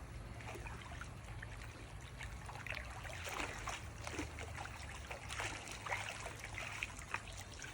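Swimming-pool water trickling and lightly splashing, with small scattered splashes.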